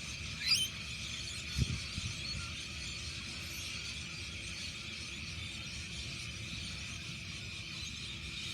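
Quiet outdoor ambience with a faint steady high-pitched drone throughout, a short rising chirp about half a second in and a soft low thump a little later.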